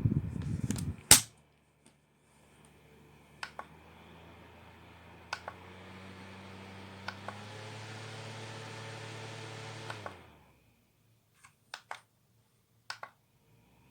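Small battery-powered fan. Its rush of air stops with a sharp click about a second in. After a few button clicks the motor starts again with a low hum that steps up in speed partway through, then switches off a few seconds later. Scattered clicks and knocks of the fan being handled follow.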